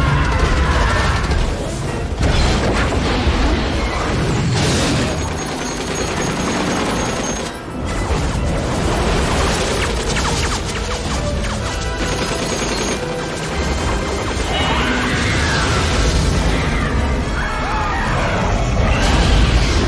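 Dense action-film soundtrack: orchestral score mixed over heavy low rumbling booms and crashes, with a few sharp hits and gliding high cries near the end.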